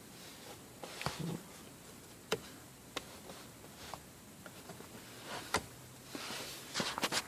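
Scattered light clicks and scrapes of a flathead screwdriver being worked into the release hole behind a BMW E60 steering wheel to reach the airbag's spring-wire clip, ending in a quick cluster of clicks.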